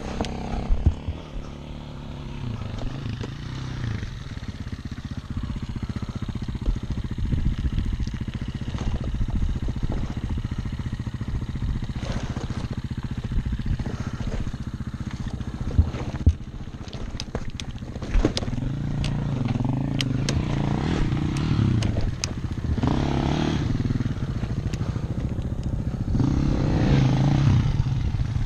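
Yamaha dirt bike engine running unevenly on a steep, rocky hill climb, with clatters and knocks from about the middle as the bike lies on its side among the rocks. From about two-thirds of the way through, the engine revs in repeated surges.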